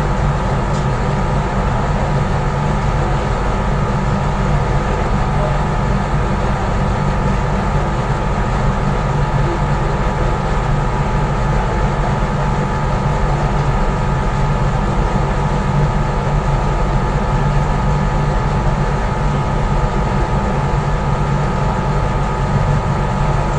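Large ship's engines running steadily: a deep, even rumble with a steady whine over it, unchanging throughout.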